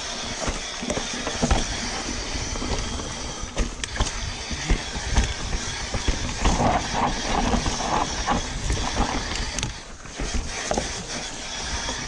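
Mountain bike riding fast down a dirt singletrack: tyre noise on loose dirt and leaves, with frequent knocks and rattles from the bike over bumps, and a low rumble of wind buffeting the microphone.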